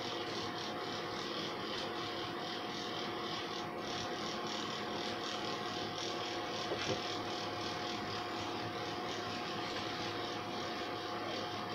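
Corded electric dog-grooming clippers running with a steady hum as they are passed through a small dog's long coat.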